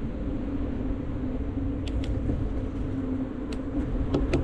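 Electric bike motor whining steadily under low road and wind rumble while riding, with a few light clicks.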